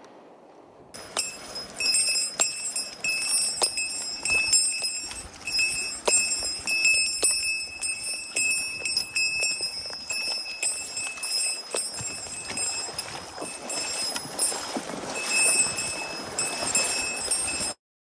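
Small bell jingling unevenly with many light taps, starting suddenly about a second in and cutting off just before the end.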